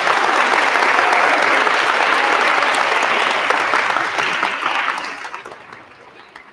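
Audience applauding: a dense, steady clapping that fades away over the last couple of seconds.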